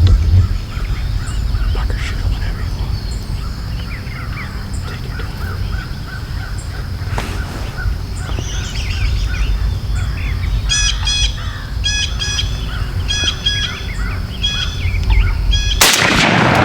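Birds calling over a steady low wind rumble, with a run of short, repeated, doubled calls in the last few seconds. Near the end comes a single loud shotgun blast, fired at a tom turkey.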